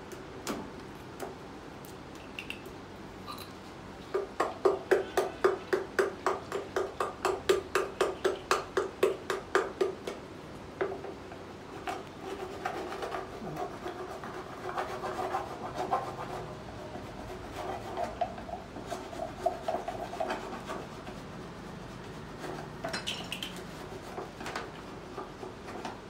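A stick stirring a white casting mix in a mug, scraping and knocking against the mug's sides in a quick, even rhythm of about three or four strokes a second, then slower, uneven scraping.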